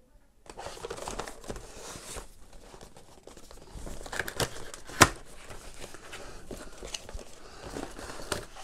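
Cardboard retail box being opened by hand: card and paper rustling and scraping as the sleeve flaps are folded back and the inner box is slid out, with small clicks and one sharp click about five seconds in.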